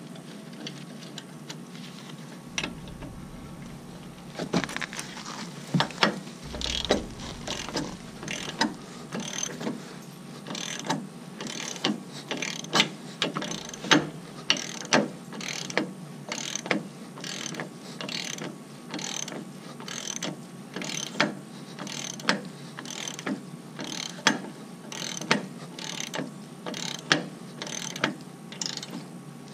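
Socket ratchet wrench clicking on its back-strokes as the bolts of a new adjustable trailer hitch are worked. The clicks are irregular for the first several seconds, then fall into a steady rhythm of about one and a half a second.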